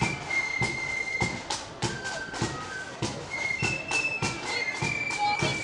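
Marching flute band playing a tune: thin high flute notes held and changing over sharp, regular drum beats.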